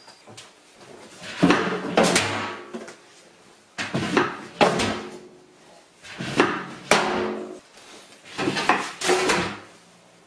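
Metal pedal trash can being opened and shut four times: each time a pair of ringing metal clanks about half a second apart as the lid swings up and drops back down.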